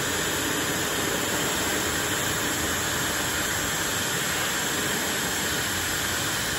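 Dyson Supersonic hair dryer running, a strong steady rush of air with no change in pitch or level.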